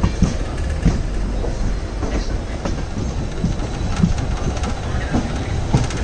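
A passenger train running along the track: a steady low rumble with irregular knocks and clicks from the wheels over the rails.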